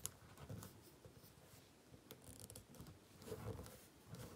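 Faint handling of a plastic action figure: soft scattered clicks and rubs as hands pose it, with one sharper click right at the start.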